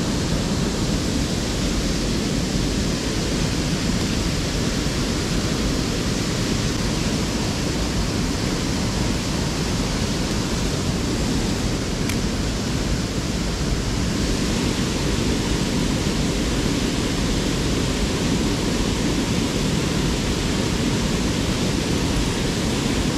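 Steady rush of water pouring through a small river's outflow (слив), an even noise with no breaks.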